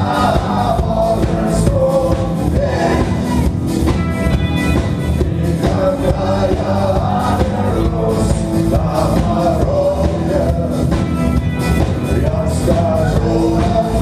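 Rock band playing live on electric guitars, bass and drum kit, with a singer's voice over the band.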